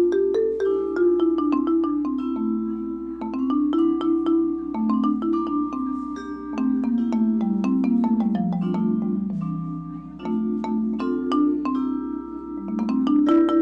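Music played on tuned mallet percussion, marimba-like: a steady stream of struck notes in flowing, overlapping melodic lines.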